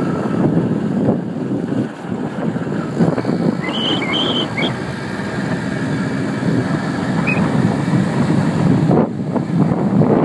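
Wind buffeting the microphone on a moving moped, over the steady running of its engine. A few short high chirps come about four seconds in, and one more near seven seconds.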